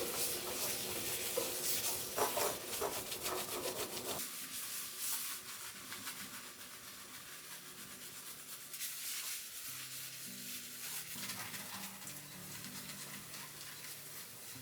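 Rubbing and scraping of kitchen work with a few light ticks, which thins out abruptly about four seconds in. Soft background music with low, stepping notes comes in during the second half.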